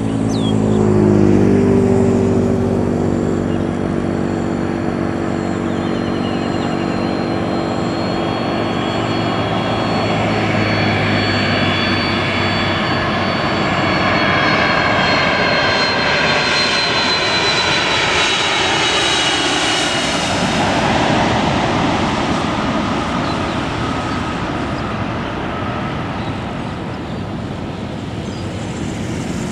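Jet engines of a FedEx Boeing 767-300F freighter on approach to land: a steady rush with a high fan whine that grows as the aircraft comes closer. The whine slides down in pitch about twenty seconds in as the jet passes.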